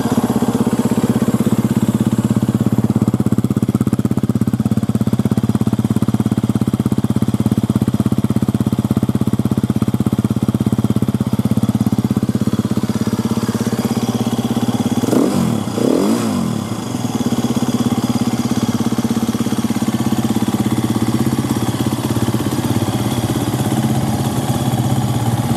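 2014 KTM 350 XCF-W's 350 cc single-cylinder four-stroke engine idling steadily. About fifteen seconds in it is revved twice in quick succession, each rev rising and falling in pitch, then it settles back to idle.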